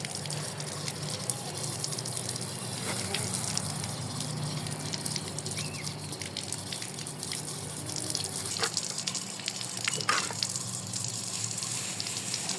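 Water running steadily, like a tap pouring into a sink or bowl, with a few light knocks a little past the middle.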